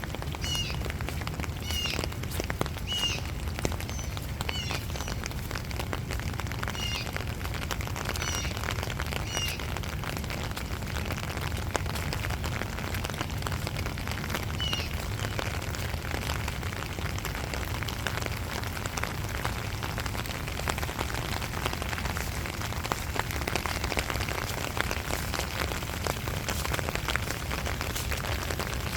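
Steady rain with many fine drop patters. Through the first half, short high-pitched calls repeat about once a second, then stop.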